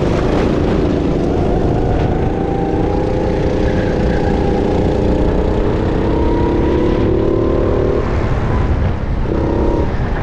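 Racing kart engine running hard, its pitch slowly climbing, then dropping about eight seconds in and rising again near the end. Heavy wind noise on the onboard microphone.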